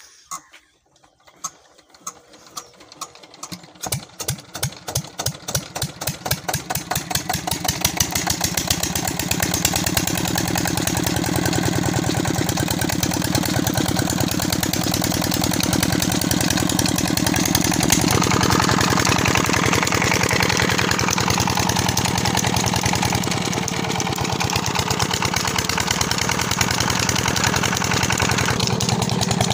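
A 16 hp diesel engine starting after standing idle for two years: slow, separate beats quicken as it catches. By about nine seconds it is running steadily, driving a pump by belt.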